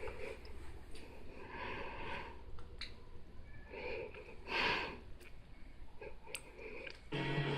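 Soft sniffing and breathing noises close to the microphone, with one louder puff about four and a half seconds in. Music starts just before the end.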